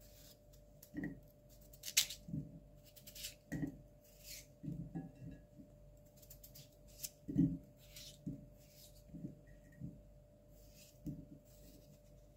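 Kitchen knife slicing through raw peeled potato held in the hand, a series of short crisp cuts about once a second, with potato wedges dropping with dull knocks into a ceramic bowl.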